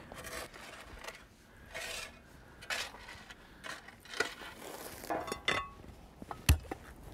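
Steel shovel scraping and spreading crushed-stone base (stone dust and aggregate) over the dirt bottom of a hole, with small clinks of metal on stone. About six and a half seconds in comes a single heavy thud, a steel hand tamper striking to compact the base.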